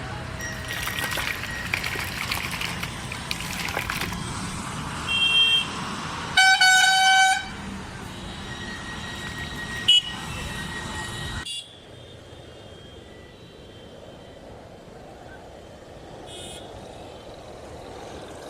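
Street traffic noise with a short high toot about five seconds in, then a loud vehicle horn honking for about a second. The traffic noise cuts off suddenly near the middle, leaving a quieter steady background.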